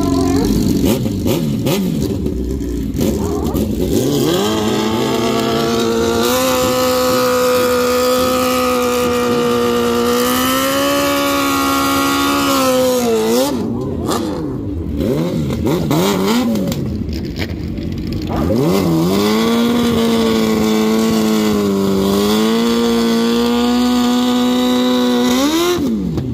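Sport-bike engine held at high, steady revs during a rear-tyre burnout, twice, each hold lasting about six or seven seconds, with the revs dropping off between them and again near the end.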